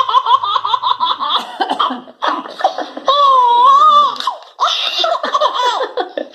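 A baby laughing: quick high-pitched giggles, a long squeal about three seconds in, then more bursts of laughter.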